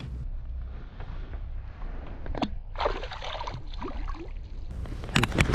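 Water sloshing and splashing, with a sharp knock about two and a half seconds in and a few more knocks near the end.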